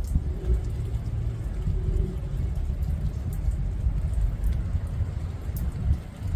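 Rain falling on leaves, with scattered drop ticks over a steady low rumble.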